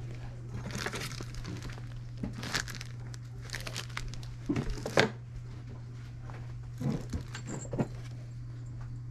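Plastic bags and packaging crinkling and rustling in several short bursts as items are handled, loudest about five seconds in, over a steady low hum.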